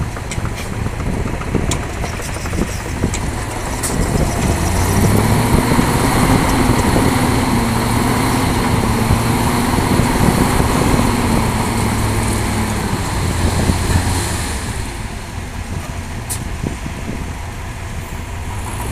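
Heavy diesel engine of the excavator or the stuck dump truck, running and then revving up under load about four seconds in. It holds high, wavering slightly, for about nine seconds, then drops back toward idle.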